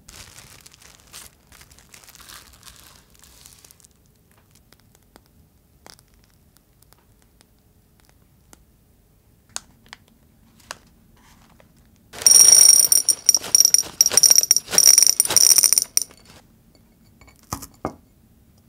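Small chocolate-coated cereal pearls poured into a small ceramic dish: a dense, loud rattle of hard little balls with the dish ringing, lasting about four seconds. Near the end, two sharp crunches as one pearl is crushed.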